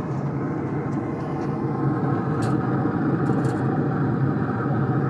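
Steady rumbling hum of a Z Grills pellet grill running at about 350 degrees, with a few light clicks about two and a half and three and a half seconds in as a baking dish is set on the rack on its grate.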